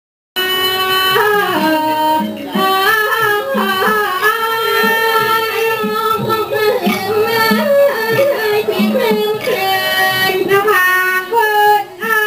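Thai classical singing with long, ornamented held notes over instrumental accompaniment for a rod-puppet performance, starting suddenly about half a second in.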